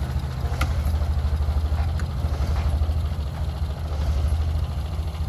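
Tractor engine running steadily at low speed, with two light clicks about half a second and two seconds in.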